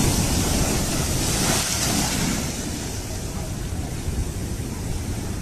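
Strong wind buffeting the microphone in a low, gusty rumble, under a steady high hiss of heavy rain.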